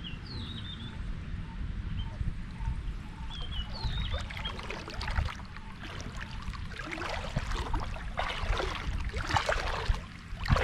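Water splashing and sloshing, growing busier through the second half, over a steady low rumble, with a few short high chirps in the first few seconds.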